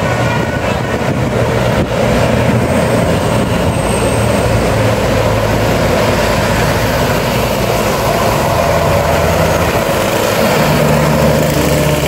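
Diesel engines of tour buses passing close on a winding road, a loud steady drone of engine and tyre noise from the traffic, with a deeper engine note coming in near the end as the next bus approaches.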